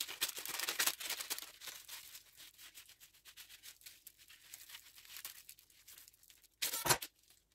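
A blade sawing through a cooled cocoa sponge cake base to split it horizontally in half: a dry, crumbly rasping, strongest in the first second or so and then fainter. A short, louder burst of sound comes near the end.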